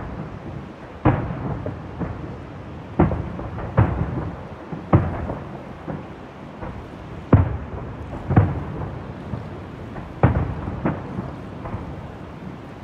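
Distant aerial fireworks shells bursting: a string of booms, one every second or two, each trailing off in a rumble, over a steady rushing noise.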